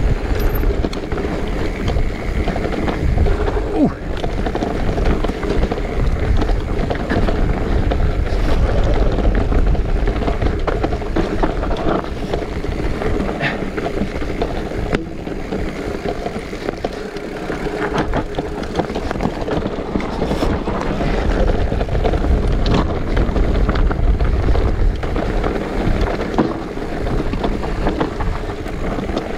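Electric mountain bike descending a dirt trail: wind buffeting the microphone and the tyres rolling over the ground, with scattered knocks and rattles from the bike over bumps.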